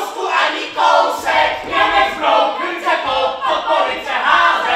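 Many actors' voices raised together, loud and overlapping in a group clamour.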